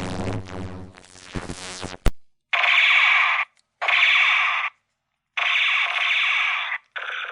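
Synthesized science-fiction UFO sound effects: a pitched electronic hum that cuts off with a click about two seconds in, then three separate buzzing bursts with short gaps between them, the last one longer.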